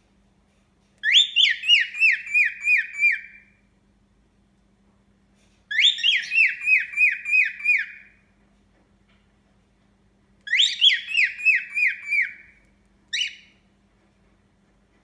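Cockatiel whistling its dawn song: three phrases of quick, falling whistled notes, about seven to a phrase, with a short single note near the end.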